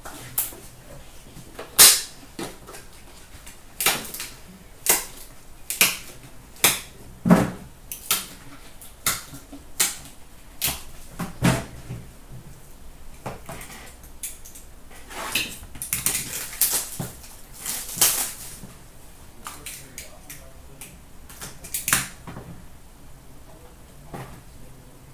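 Hands handling trading cards: a string of sharp, irregular clicks and taps as cards are flicked, squared and set down. The loudest click comes about two seconds in, and the clicks grow denser about two-thirds of the way through.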